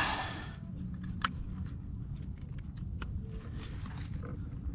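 A few sharp clicks and light knocks over a low wind rumble on the microphone, from a freshly caught snook and tackle being handled on a kayak.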